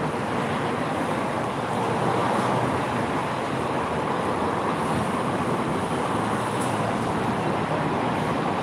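Steady outdoor city noise with a constant traffic-like rush.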